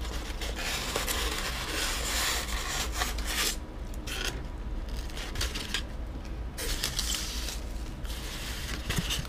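Polystyrene foam packing block rubbing and scraping against the inside of a cardboard box as it is worked out. Steady scratching for about the first three seconds, then shorter spells with brief pauses.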